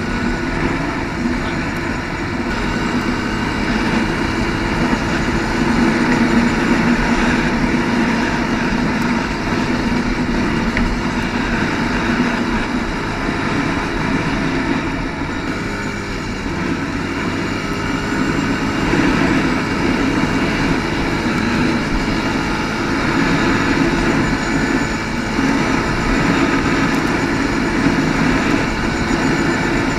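ATV engine running as it is ridden, its pitch rising and falling a little with the throttle.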